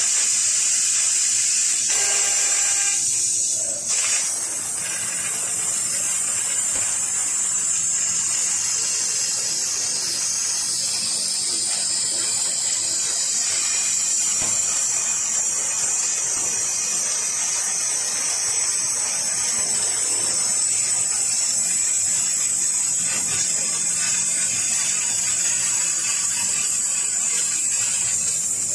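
6 kW fiber laser cutting carbon steel sheet: a steady high hiss from the cutting head as it cuts, briefly dipping about four seconds in.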